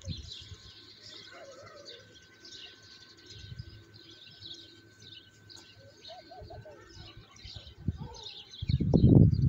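Doves cooing, with short low calls about half a second in and again about six seconds in, over faint chirping of small birds. A loud low rumble on the microphone comes near the end.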